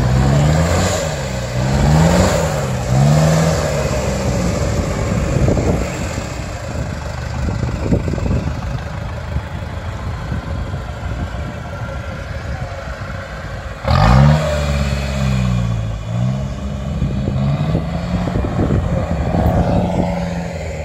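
Off-road pickup truck engine revving hard in repeated rises and falls as the truck drives up a sand hill. The revving comes in a burst at the start, eases for a stretch, then surges again about two-thirds of the way in.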